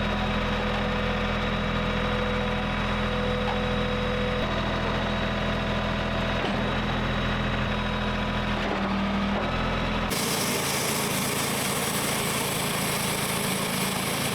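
Sawmill's small gas engine running steadily. About ten seconds in the sound changes abruptly to a brighter, hissier noise with less low hum.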